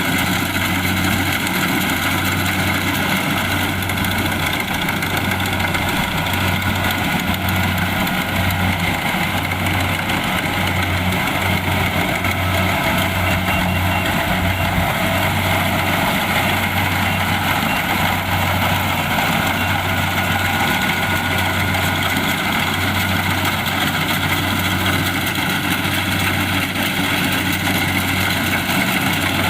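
Kubota DC-70 Plus combine harvester's diesel engine and machinery running steadily at a constant speed, with a low, even throb.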